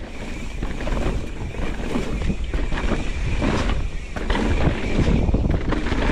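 Wind buffeting the helmet camera's microphone as a mountain bike rides down a dirt trail, with tyre rumble and frequent knocks and rattles from the bike over bumps.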